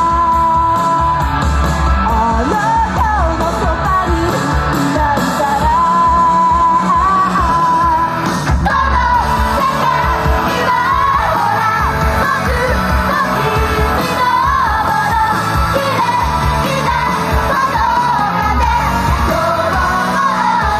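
Female idol group singing a loud pop-rock song over amplified music, live on stage.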